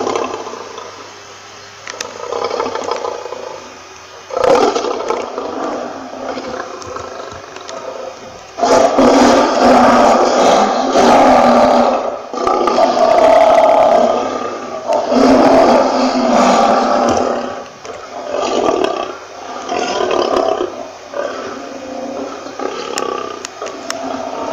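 Lion roaring: a series of loud, drawn-out roars, loudest and longest in the middle, trailing off into shorter, weaker calls near the end.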